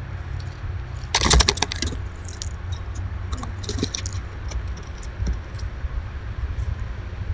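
Squirrels scrabbling at a hanging tube seed feeder: a quick run of sharp clicks and scratches about a second in, then scattered lighter ticks, over a steady low rumble.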